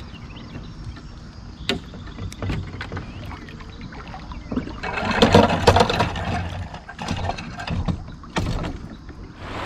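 Knocks and clatter of a fishing kayak on the water, against its hull and gear, with scattered sharp knocks and a busier, louder stretch about five to six and a half seconds in.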